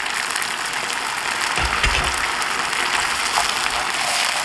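Vegetables in a starch-thickened sauce sizzling in a frying pan as they are stirred and tossed with a wooden spatula, at the last stage of a stir-fry with sesame oil just added. A low knock or two about two seconds in.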